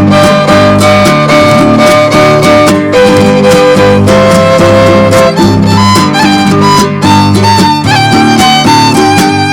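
Loud background music: an electronic track with a steady beat, a pulsing bass line and a lead melody that moves between held notes.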